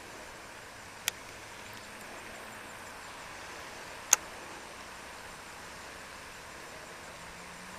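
Quiet outdoor ambience at the edge of a pond, a steady faint hiss, broken by two sharp clicks about three seconds apart; the second click is the louder.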